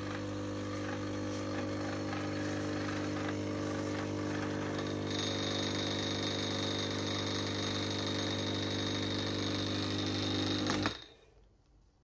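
Rohnson R-989 espresso machine's pump buzzing steadily while it brews espresso into two cups. About five seconds in a higher hiss joins the buzz, and near the end the machine stops with a click and the sound dies away.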